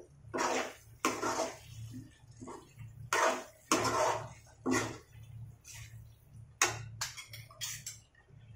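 Steel slotted spoon stirring and scraping through thick korma gravy in an aluminium kadhai: about a dozen uneven scrapes against the pan, over a steady low hum.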